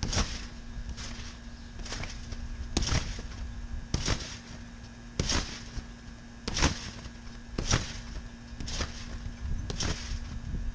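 A person bouncing on a wet backyard trampoline: the mat and springs give a sharp landing impact about once a second, around ten times.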